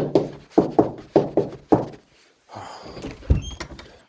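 Heavy footsteps, about six thuds in under two seconds, then a door being opened or closed with a sharp thunk and a brief squeak.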